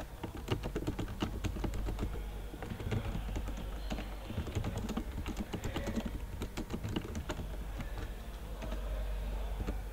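Typing on a computer keyboard: quick, irregular runs of key clicks, a little sparser near the end, over a steady low hum.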